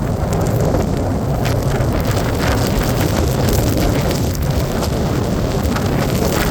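Strong gusty wind buffeting the microphone, a loud, continuous low rumble with a rushing hiss above it.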